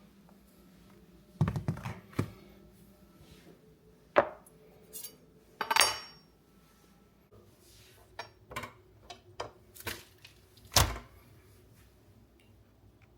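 Scattered knocks and metal clinks of a knife and utensils on a cutting board and counter while a raw brisket is trimmed; about a dozen separate hits, one with a short metallic ring.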